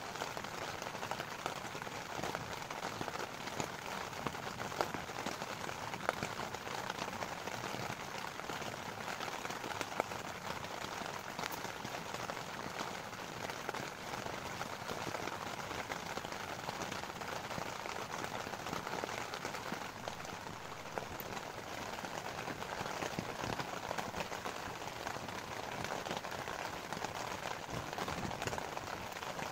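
Steady rain falling: an even hiss with many sharp drop ticks scattered through it.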